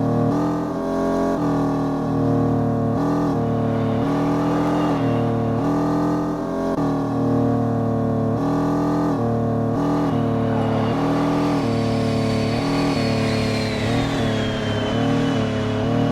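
Genesis G70 on the highway: engine note and road noise inside the cabin, the engine pitch stepping up and down, with a thin high whine that falls in pitch near the end.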